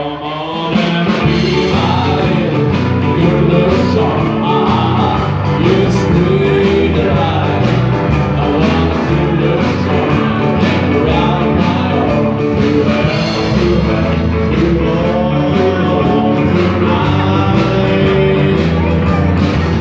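Live band playing a rock 'n' roll song with a singer, a steady beat throughout.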